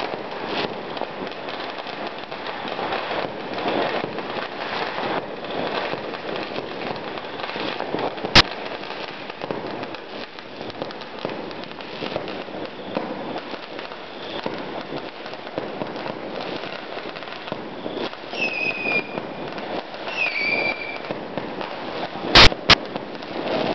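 Fireworks and firecrackers going off all around: a continuous crackling and popping of many distant explosions, with a sharp close bang about a third of the way in and a double bang near the end. Two short falling whistles sound shortly before the end.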